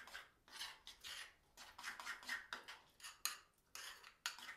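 A spoon scraping and clinking around a bowl as a thick nut butter mixture is stirred, in quick irregular strokes.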